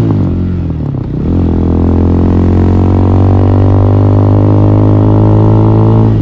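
Hawk 250cc motorcycle engine running under way, heard from a mic inside the rider's helmet. About a second in the engine note drops and the level dips briefly, as in a gear change, then the engine holds a steady pitch.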